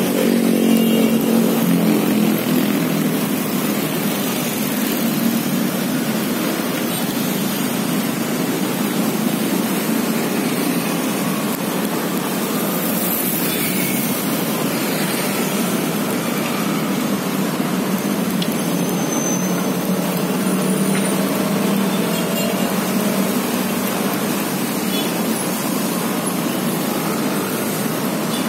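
Steady road-traffic noise from cars and motorcycles passing, with a motorcycle engine running close by during the first few seconds.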